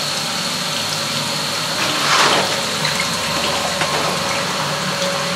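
Water running steadily into a washing machine tub as it is rinsed out, with a brief louder gush about two seconds in.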